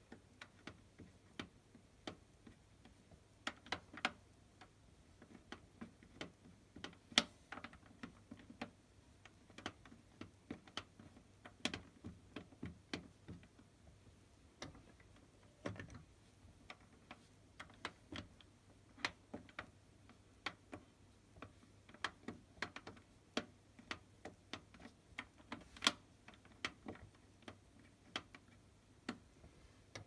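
Irregular plastic clicks from a Beko washing machine's control panel as its program selector dial is turned through its detents and its option buttons are pressed, a few clicks a second with short pauses between.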